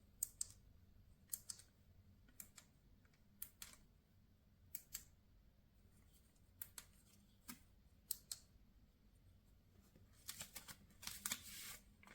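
Small sharp clicks, mostly in pairs roughly a second apart, then a quick flurry of clicks with a brief rustle near the end, against near silence.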